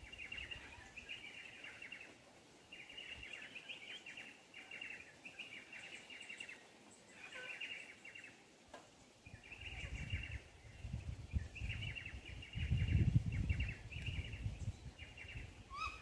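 Birds chirping in repeated short bursts of rapid high chatter. There are two spells of low rumbling noise in the second half, the louder one about three-quarters of the way through.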